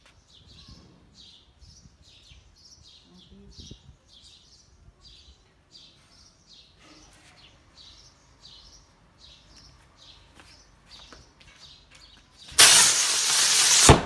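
Three firework sky rockets taped to table-fan blades ignite together about a second and a half before the end with a loud, rushing hiss of rocket thrust. Before that there are only faint, repeated bird chirps.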